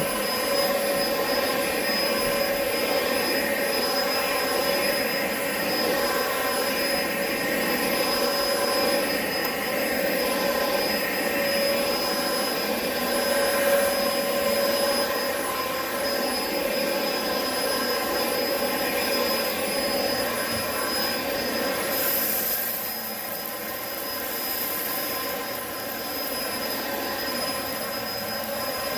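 Upright vacuum cleaner running steadily, a motor hum with a high whine. About two-thirds of the way through, the sound drops a little and two brief bursts of high hiss come through.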